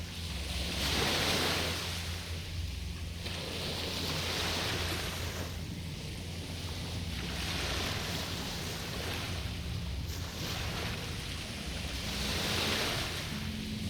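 Small waves washing onto the shore, each swelling and fading away, one about every three to four seconds, over a steady low rumble.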